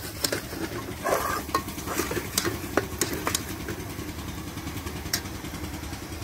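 A metal spoon stirring and scraping frying onion and spice masala in an aluminium pot, clicking against the pot's side about a dozen times over the first three and a half seconds, with the masala sizzling. A steady low rumble runs underneath.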